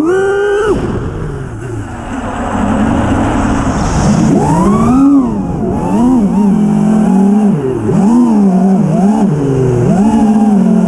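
Brushless motors of a 6S 5-inch FPV freestyle quadcopter (iFlight Xing-E 2207 1800kv with 5-inch props), whining with a pitch that rises and falls with rapid throttle changes. The pitch climbs sharply at the start, then the throttle chops into a rush of air noise, followed by quick repeated punches and dips.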